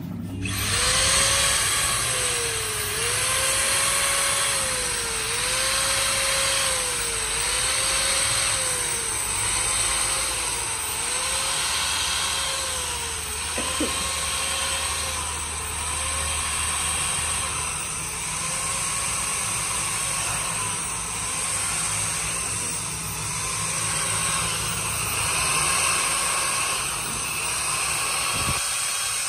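Hand-held electric drill turning a cutter in a valve seat of a Bedford truck diesel cylinder head. Its motor whine dips and recovers in pitch over and over, about every one and a half to two seconds, under a steady high whine, with a single click about halfway through.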